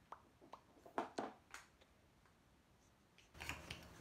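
A few faint, short clicks and taps, about five within the first second and a half, from small toys being handled; otherwise near silence.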